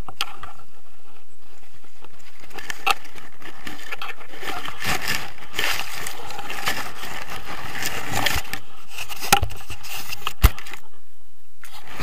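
Grass and leaves rustling and scraping against the camera, with many small crackles, then two sharp knocks in quick succession near the end.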